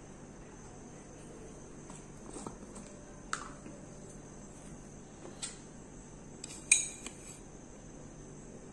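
A few light clicks and knocks of a coffee jar and its contents being handled, then a metal teaspoon clinking as it scoops instant coffee granules from the jar. The loudest clink comes about seven seconds in, with a short ring. A steady high hiss runs underneath.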